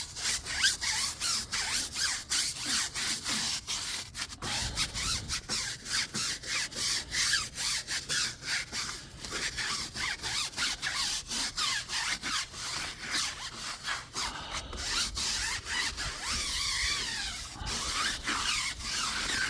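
Stiff-bristle brush scrubbing a wet rubber tire, quick back-and-forth strokes about two to three a second.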